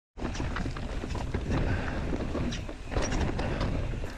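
Mountain bike tyres rolling over dirt and rocks: a steady low rumble with frequent small clicks and knocks from the stones.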